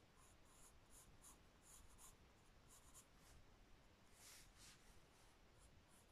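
Faint pencil strokes on paper: short scratchy strokes of a pencil sketching hatching lines, about two or three a second, with a longer, stronger pair of strokes about four seconds in.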